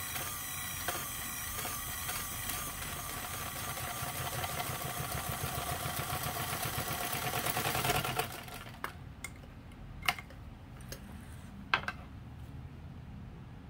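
Motor-driven Singer 15 sewing machine stitching through two layers of leather, running steadily and rhythmically with a motor whine, picking up a little toward the end of the run and stopping about eight seconds in. A few sharp clicks follow as the work is handled.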